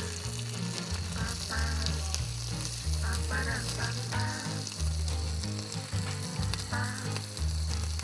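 Mentaiko-stuffed sardines frying in oil in a small black iron pan over a camp gas burner: a steady sizzle, with light clicks as metal tongs turn the fish.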